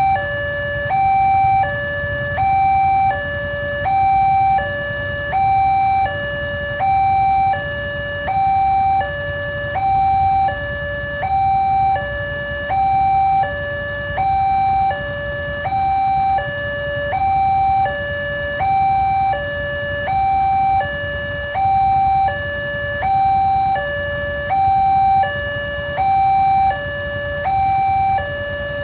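Railway level-crossing warning alarm sounding a steady two-tone signal, a higher and a lower tone alternating evenly about every 0.7 s, warning that a train is approaching. A steady low rumble runs underneath.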